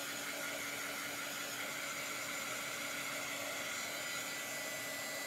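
Handheld blow dryer running steadily, a constant whooshing hiss with a faint hum, as it dries freshly applied shimmer chalk paste.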